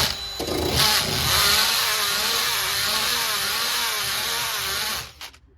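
Power drill spinning a quick-strip rust-stripping disc against the rusty sheet-metal trunk floor, its pitch wavering as the load on the disc changes. It runs steadily and stops suddenly about five seconds in.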